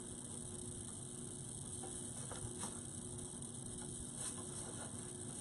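Faint handling sounds of ribbon and hanger being adjusted: a few light ticks and rustles over a steady background hiss and low hum.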